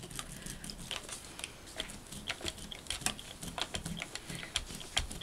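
Brayer rolled back and forth through wet ink and shimmer paint inside an empty clear plastic clamshell stamp case: light, irregular ticks and clicks, several a second, from the roller and the plastic case.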